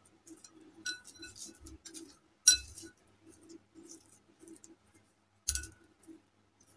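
Three sharp clinks on a glass mixing bowl as hands and a plastic modak mould knock against its rim while dough is pressed into the mould. The second clink is the loudest, with soft handling rustles between them.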